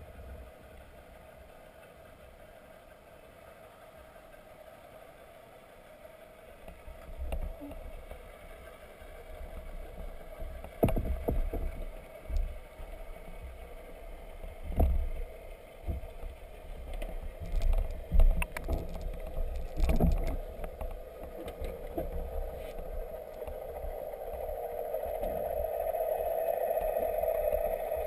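Muffled underwater sound picked up through a camera housing: a steady hum that grows louder over the last few seconds, with scattered dull knocks and thumps through the middle.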